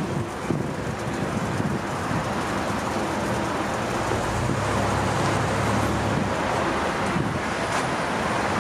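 Road traffic noise from passing cars, with a low vehicle rumble swelling for a couple of seconds in the middle, and wind on the microphone.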